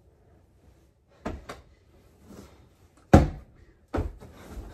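A few dull thumps with rustling from bedding and the mattress as a comforter is grabbed and pulled off a bed. The loudest thump comes a little after the middle.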